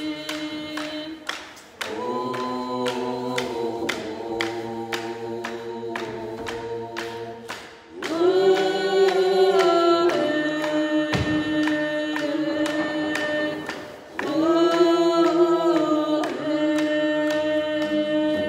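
A group of voices singing a canoe-family song together to hand drums beaten in a steady, even rhythm. The singing goes in long held phrases, with short breaths between phrases three times.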